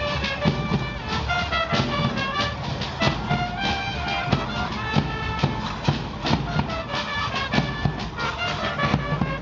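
Brass band playing caporales music: wind instruments carrying the melody over a steady drum beat.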